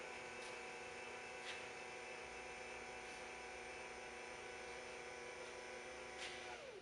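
Milling-machine table power feed running, a steady electric-motor whine driving the table along its traverse, with a few light clicks. Near the end the whine drops in pitch and dies away as the feed is switched off.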